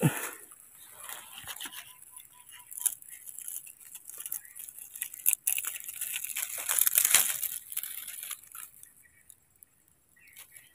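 Dry leaf litter and twigs rustling and crackling close to the microphone, with a thump right at the start and the loudest crackling a little past the middle.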